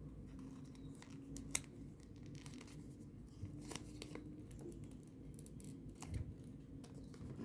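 Faint handling of double-sided tape and paper origami units: tape being torn off and pressed on, heard as scattered small clicks and crinkles, the sharpest about one and a half seconds in.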